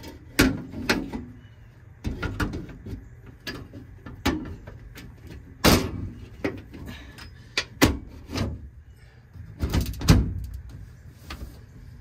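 Sheet-metal access door of a Goodman furnace being worked back onto its cabinet: a string of sharp knocks and bangs of the panel against the cabinet, the loudest near the middle and about ten seconds in.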